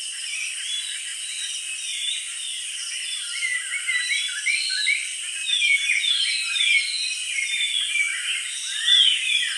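Many small birds chirping and twittering, their calls overlapping and growing busier after the first few seconds, over a steady high hiss.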